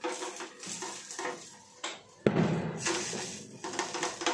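Wooden spatula scraping and knocking against a non-stick frying pan as adai is worked in it, in irregular strokes, with one heavy thump a little past two seconds in.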